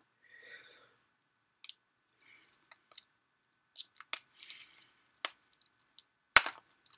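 Plastic shrink wrap crinkling and snapping as it is bitten and pulled at with the teeth: scattered sharp clicks and short crackles, the loudest snap about six and a half seconds in.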